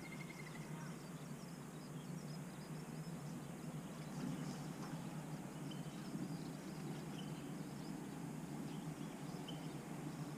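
Faint outdoor ambience: a steady low rumble with a few scattered faint bird chirps.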